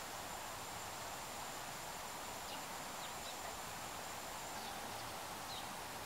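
Steady outdoor background noise with a thin, high steady tone that stops about four and a half seconds in, and a few faint, short bird chirps.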